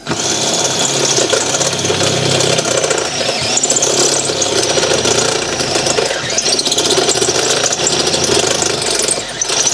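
Cordless DeWalt drill with a step bit cutting through the truck body's sheet metal, running loud and continuously with a high wavering whine. It is drilling out the holes for the bracket's rivet nuts.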